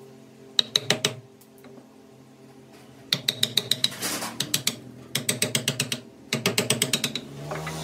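Four short bursts of rapid mechanical clicking, about ten clicks a second, over a steady low hum.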